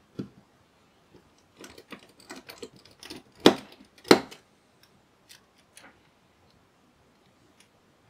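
Small screws being driven with a precision screwdriver while a laptop cooling fan is refitted to its heatsink shroud: a string of light clicks and taps, with two louder knocks about halfway as the fan and heatsink assembly is handled.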